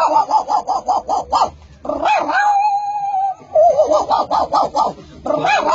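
A man's voice imitating a dog: quick runs of short yips, with one long, steady whine in the middle.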